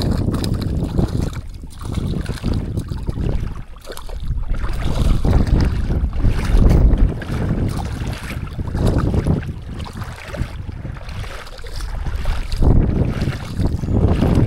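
Wind buffeting the microphone in uneven gusts, a low rumbling noise that swells and drops every few seconds.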